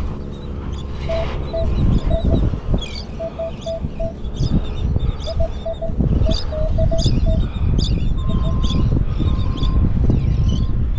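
Metal detector beeping over a target in short repeated tones, with a higher, longer tone repeating from about eight seconds in, over a steady low rumble.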